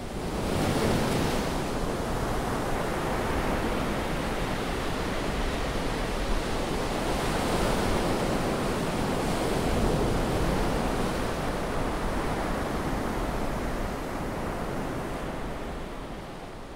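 Ocean surf washing onto a sandy beach: a steady wash of waves with gentle swells, fading out near the end.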